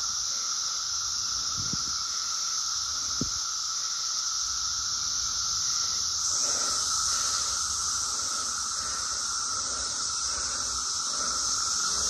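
Chorus of Brood X periodical cicadas: a loud, steady shrill drone that holds without a break.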